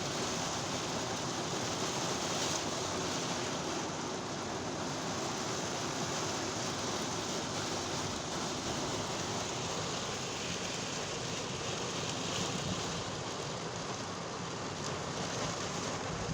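Heavy rain falling steadily on a car's windshield and roof, heard from inside the car as an even, unbroken hiss.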